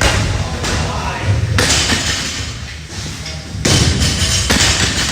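Four heavy thuds spaced a second or two apart, over a steady background of voices and music.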